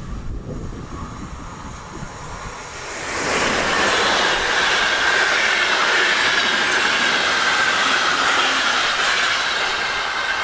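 Wind on the microphone at first, then from about three seconds in the loud, steady rush of a Bombardier Traxx 3 electric locomotive and its RegioJet passenger coaches rolling past at speed. A high whine from the wheels on the rails runs through the pass-by, slowly falling in pitch.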